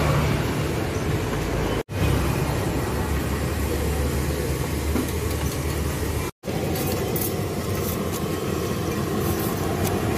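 Steady roadside traffic noise: a low rumble of passing motor vehicles, cut to silence twice for a split second.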